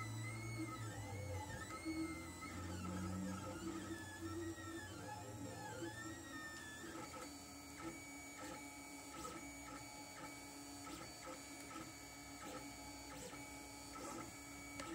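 Lulzbot TAZ 3 3D printer printing, its stepper motors whining as the print head moves. For the first six or seven seconds the pitch rises and falls in smooth arcs, then it turns to steadier tones broken by short pauses, over a steady hum.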